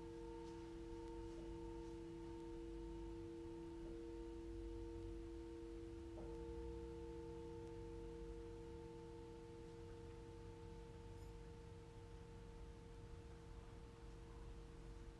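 Metal singing bowls ringing with a steady hum of several tones held together. About six seconds in a soft strike sets the ringing going afresh.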